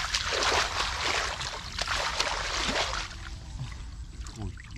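Hands sloshing and splashing through shallow muddy water and mud while groping for fish by hand, busiest for about the first three seconds, then quieter.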